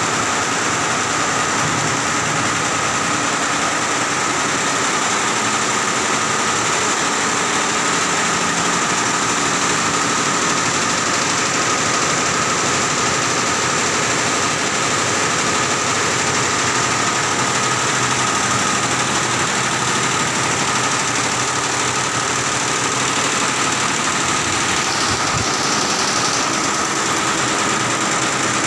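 Alliance multi-head embroidery machine running, its many heads stitching together in a steady mechanical clatter with a constant high tone over it.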